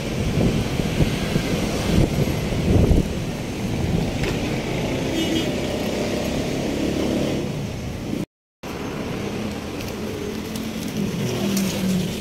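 Road traffic passing on a busy street: a steady rumble of car and motorbike engines and tyres. It breaks off in a brief silent gap about eight seconds in.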